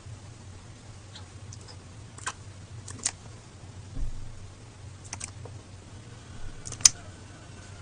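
Low steady hum with a handful of short, sharp clicks at uneven intervals. The loudest click comes near the end.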